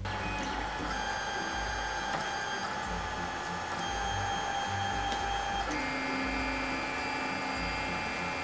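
Lulzbot Taz 5 FDM 3D printer running as it starts a print, its stepper motors whining with several steady tones that switch to a different pitch set about six seconds in as the moves change.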